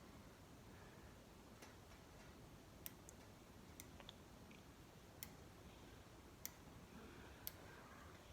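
Small magnetic balls clicking as they snap together one at a time: about seven faint, sharp clicks at irregular intervals over near-silent room tone.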